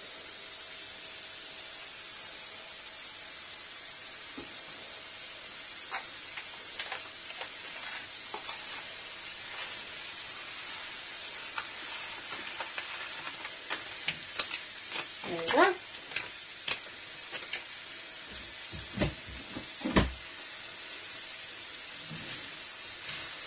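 Leeks, shallots and arborio rice sizzling in butter in a frying pan, the first stage of a risotto where the rice is coated in the fat. A wooden spoon scrapes and clicks against the pan as the rice is stirred, with a few louder knocks in the second half.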